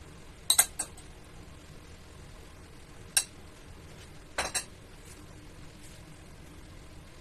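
A metal spoon clinks sharply against a glass bowl while scooping out chopped filling. There are three quick clinks about half a second in, a single one around three seconds, and another quick cluster around four and a half seconds.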